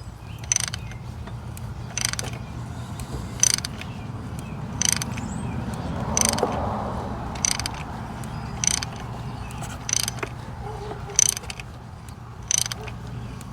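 Ratchet clicking in short strokes about every second and a half as it turns a thread tap through a spark plug hole in the aluminum cylinder head of a Ford Triton engine; the tap has just broken through into the combustion chamber.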